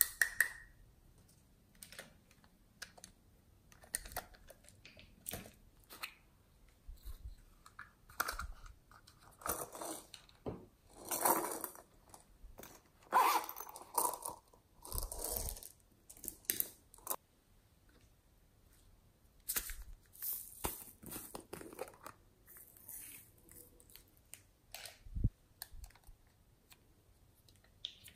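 Close handling sounds of small plastic topping containers: scattered clicks and taps of bottles and lids. Longer rustling and crinkling around the middle as a zippered pouch of beads is opened and handled.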